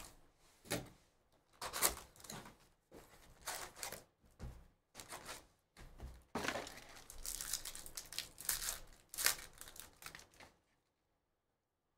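Wrapping on a box of trading cards and its foil packs being torn open and crinkled by hand, in irregular rustling bursts that stop shortly before the end.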